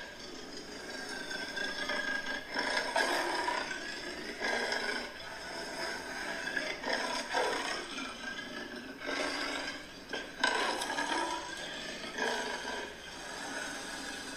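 Recording of a leopard calling: a string of hoarse, rasping calls, its sawing call, repeated every second or two.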